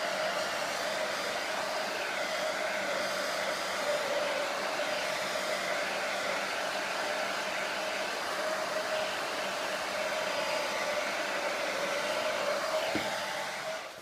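Heat gun running steadily, an even rush of blown air over a steady fan whine, heating a phone's glass back to soften the adhesive beneath it. It winds down and stops near the end.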